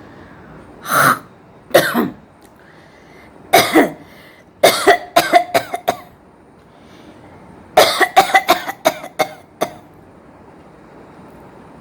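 A woman coughing on purpose in different styles: three single coughs, then two rapid runs of short, quick coughs.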